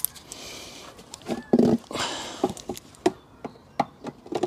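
Handling noise from a plastic air-filter box being moved about, then several separate sharp clicks in the second half as a ratchet and socket are worked on the bolt holding the mass airflow meter.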